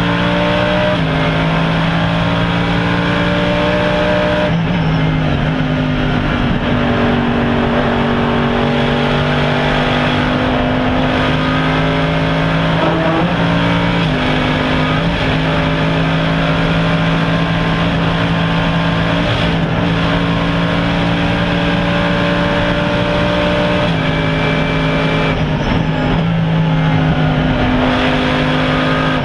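Mercedes-Benz SLS AMG GT3's naturally aspirated 6.2-litre V8 racing engine under hard running, heard from inside the cockpit. The engine note holds steady for stretches and jumps in pitch at each gear change, several times, over tyre and wind noise.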